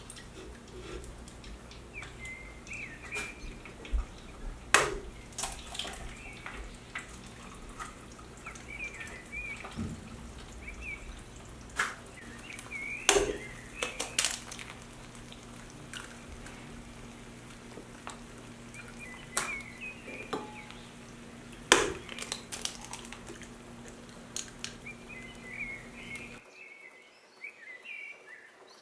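Eggs frying in oil in a nonstick pan with a faint sizzle, broken by sharp clicks and knocks of eggshells cracked on the pan and a utensil tapping the pans. A steady low hum runs underneath and drops out near the end.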